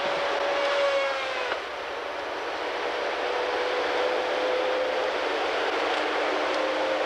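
Timberjack 618 tracked feller buncher working: its engine and hydraulics run steadily under a high whine that drops in pitch about a second and a half in, then slowly climbs back.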